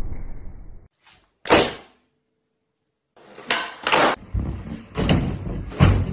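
Skateboard wheels rolling on a wooden floor, then a single sharp board slap about a second and a half in. After a short silence, skateboard tricks on a tiled floor: about four hard board snaps and landings over a few seconds, with wheels rolling in between.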